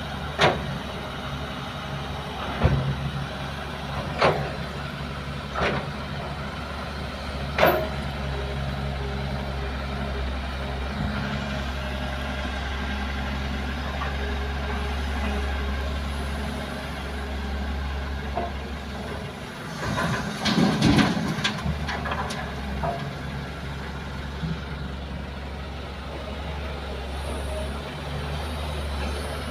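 Kobelco excavator loading soil into a dump truck: heavy diesel engines running steadily, with five sharp knocks in the first eight seconds and a longer clattering rumble about twenty seconds in as the bucket works and earth drops into the truck bed.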